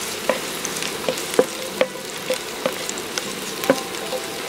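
Sliced garlic sizzling in hot oil in a nonstick frying pan, with a spatula stirring it and clicking against the pan about seven times.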